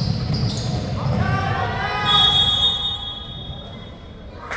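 Basketball bouncing on the gym floor, then a referee's whistle blows about two seconds in and is held for roughly a second and a half, stopping play for a foul.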